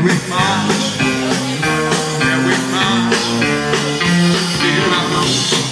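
A live band playing rock-soul music, a passage where melodic guitar-and-band lines move in stepping notes while the steady drum beat drops out, returning just at the end.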